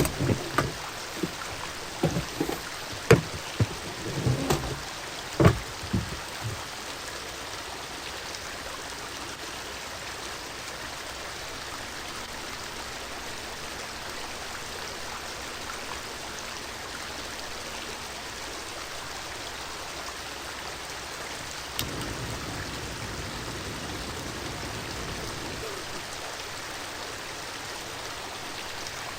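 A steady rushing hiss, with a handful of sharp knocks and thumps in the first six seconds.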